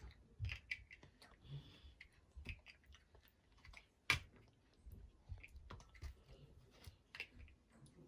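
Large plastic building blocks being handled and pressed together: scattered faint clicks and knocks, the sharpest about four seconds in.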